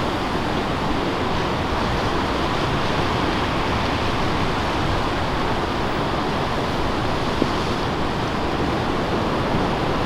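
Steady rush of surf and water, with wind buffeting the microphone.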